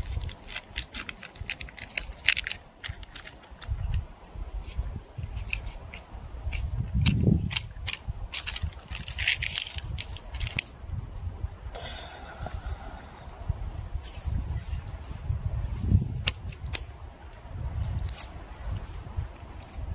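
Dry twigs snapping and crackling in irregular bursts of sharp clicks as they are broken by hand.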